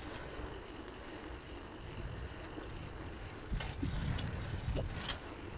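Wind rumbling on the microphone along with movement and road noise as the camera travels along an asphalt street, with a few short knocks and rattles in the last two seconds.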